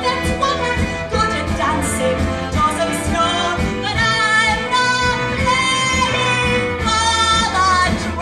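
Musical theatre song with a woman singing long held notes with vibrato over a band accompaniment.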